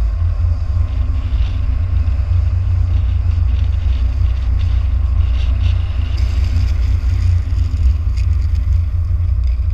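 Heavy wind buffeting on an action camera's microphone as it travels at speed behind a downhill longboarder, mixed with the rumble of wheels on asphalt. Short scraping sounds come in over the last few seconds as the skater goes into a hand-down slide.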